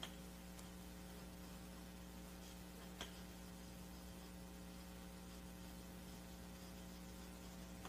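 Quiet room tone carrying a steady low electrical hum, with one faint click about three seconds in.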